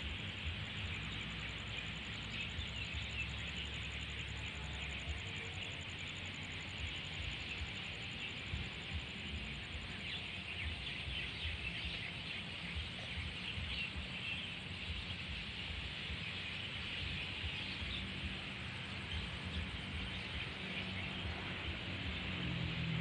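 Night-time insects chirping densely, with a steady high-pitched trill above them and a low hum underneath that grows a little near the end.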